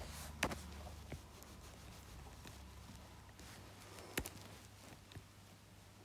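Stylus tapping on a tablet's glass screen: a few faint, sharp taps, the loudest about four seconds in, as letters are undone and written.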